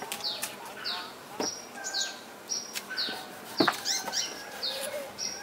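Kitchen knives cutting and knocking on wooden chopping boards as coconut heart is sliced, with a few sharp knocks, the loudest about two-thirds of the way in. Behind them a bird calls over and over in short, high, falling chirps, about two a second.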